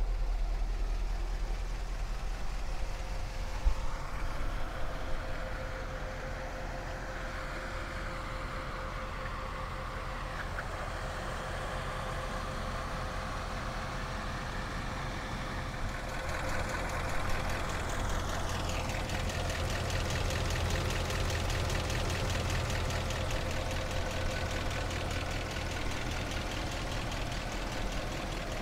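Bentley Arnage T's 6.75-litre twin-turbocharged V8 idling steadily, a low even hum that grows a little stronger about halfway through.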